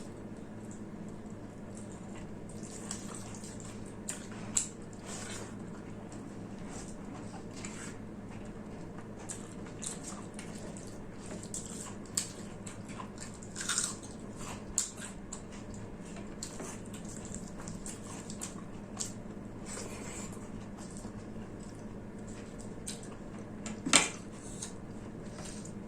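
Close-up eating sounds of rice and mutton curry: chewing, with many short wet mouth clicks and smacks and a few louder sharp clicks, over a steady low hum.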